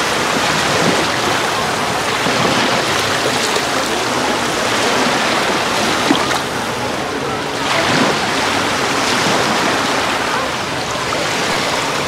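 Small sea waves washing in over shallow water at the shoreline, close to the microphone: a steady fizzing wash that swells and eases, with a brief splash about six seconds in.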